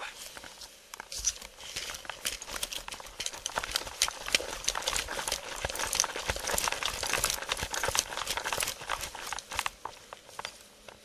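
Quick footsteps of a person running on grass and pavement, with clothing and gear rubbing and knocking against a body-worn camera: a fast, irregular clatter of clicks and scuffs.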